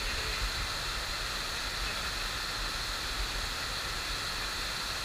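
Steady rushing water of a FlowRider surf simulator, its pumped sheet of water pouring up and over the ride surface.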